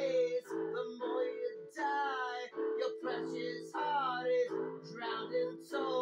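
Music: an electronic keyboard playing held chords, with a voice singing a gliding melody over them in phrases about a second long.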